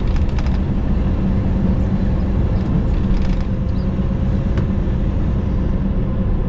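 Steady engine and road rumble of a semi-truck heard from inside its cab while driving, with a constant low hum and a few faint ticks.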